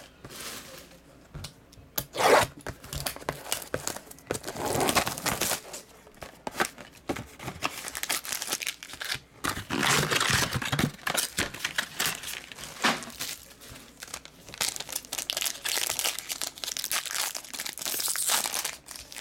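Foil trading-card pack wrapper being crinkled and torn open by hand, in irregular bursts of crackling and tearing. A single sharp knock sounds a little over two seconds in.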